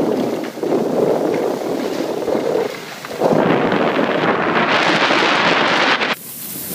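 Wind buffeting the microphone of a camera carried by a moving skier, a low rumble, with skis scraping over packed snow. From about three seconds in the scraping turns into a louder, brighter hiss, which cuts off suddenly near the end.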